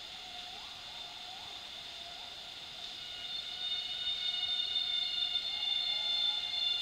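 Rainforest insect chorus: several steady, high whining tones held together that grow louder about three seconds in, with a few short rising chirps in the first half.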